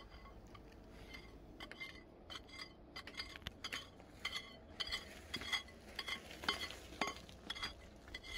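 Loose stone chips clinking and clattering underfoot on a rocky rubble path, in short, irregular, ringing clinks that come more often in the second half.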